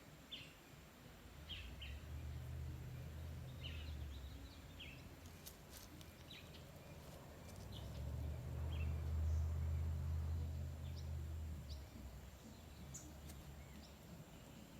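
Wild birds giving short, scattered chirps. A low droning hum swells and fades twice beneath them, loudest a little past the middle.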